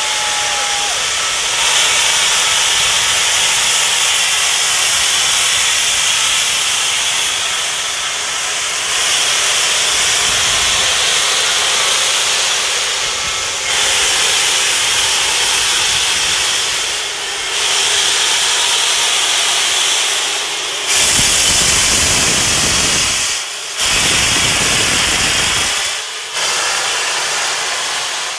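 Union Pacific Big Boy 4014, a 4-8-8-4 articulated steam locomotive, venting steam low beside its front cylinders: a loud, steady hiss that dips briefly every few seconds.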